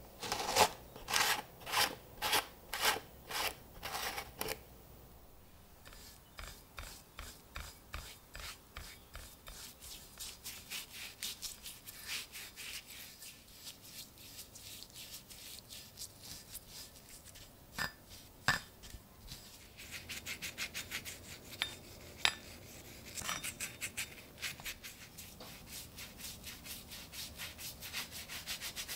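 Rubbing strokes on a steel axe head, made by a gloved hand and a brush working over the metal. The first few seconds hold loud strokes about twice a second, followed by a long run of lighter, quicker strokes broken by a few sharp taps.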